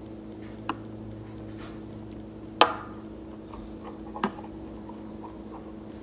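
Steamed milk poured from a pitcher into a ceramic cup: three light clinks of pitcher and cup, the loudest about two and a half seconds in, over a steady low hum.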